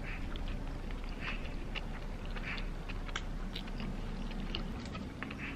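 A person biting into and chewing a soft burger at close range: wet, smacking mouth sounds about once a second, with scattered light clicks.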